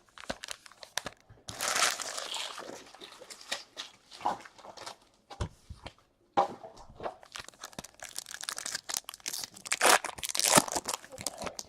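Trading-card pack wrappers being torn open and crinkled, with irregular crackling and small clicks of cards being handled. It is loudest about two seconds in and again about ten seconds in.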